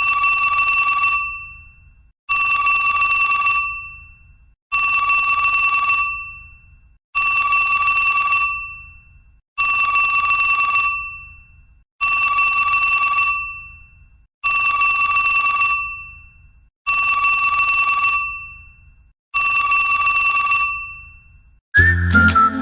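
A stock LG Optimus G E975 ringtone imitating an old telephone bell: a bright, rattling bell ring lasting about a second and fading away, repeated nine times at even intervals of about two and a half seconds. Just before the end a different, melodic tone begins.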